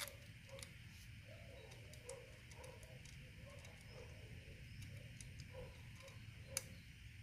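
Near-quiet hand work on a motorcycle starter's mounting bolts: faint, scattered light clicks and ticks of a bolt and small tools being handled, with a sharper click right at the start and another near the end.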